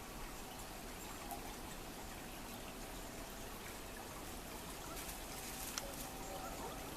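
Small river flowing and trickling steadily, with a few faint sharp clicks, the clearest about six seconds in.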